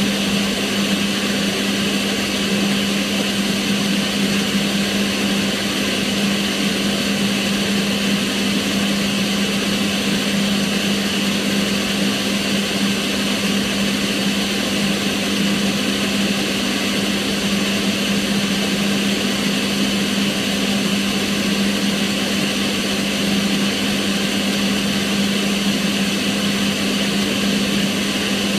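Kitchen range hood's extractor fan running steadily: a constant low hum over an even rush of air.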